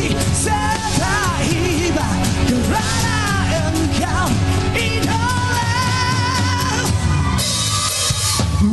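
Rock band playing live, a wavering lead melody over bass and drums. Near the end the low end drops out briefly before the band comes back in.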